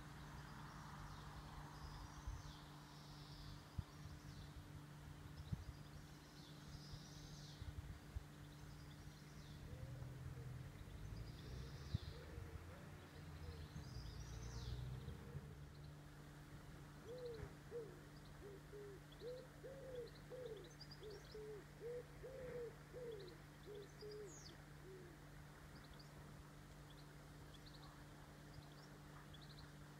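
Quiet lakeside ambience: small birds chirping faintly in the first half, then a pigeon cooing in a run of short, low, arching notes for about eight seconds past the middle, over a steady low hum and some low rumble early on.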